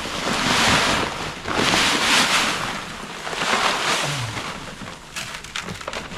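Cracked corn and feed poured from paper sacks into a cattle feeder, a rushing hiss that comes in three swells about a second long each. Near the end it gives way to crackling as the empty sack is handled.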